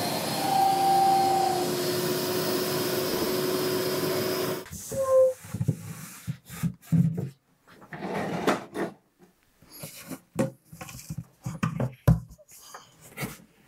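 Festool dust extractor running through a homemade cyclone separator, with a steady rushing noise and a faint whistle as it sucks up a pile of sawdust, then switching off about four and a half seconds in. After that come scattered knocks and scrapes as the wooden collection bin is slid out of its cabinet and tipped.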